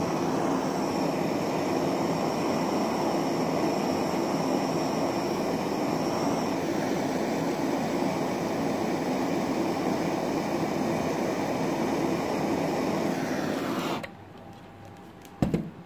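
Handheld gas blowtorch flame hissing steadily as it melts candle wax in a metal mould; it cuts off suddenly about 14 seconds in, followed by a couple of light clicks near the end.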